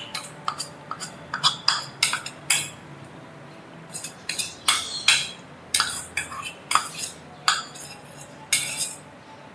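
A metal spoon scraping and clinking against metal cookware in quick, irregular strokes as masala is scooped out and spread over the chickens.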